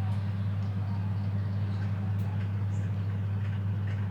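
A steady low machine hum that does not change, with a few faint light clicks over it.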